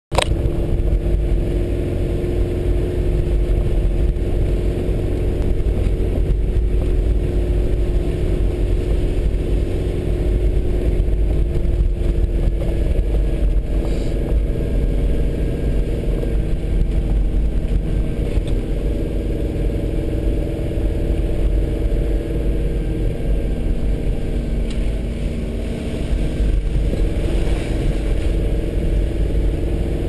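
A vehicle engine running steadily as it drives over a rough dirt track, heard from inside the cabin: a constant engine hum over a low rumble of tyres and suspension on the ruts.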